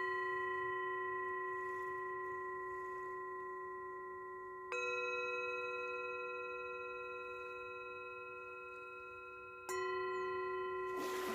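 Two alternating bell-like chime tones used as breathing cues, one struck about every five seconds and ringing out slowly, so that one tone cues breathing in and the other breathing out, at six breaths a minute. A short rush of noise comes in near the end.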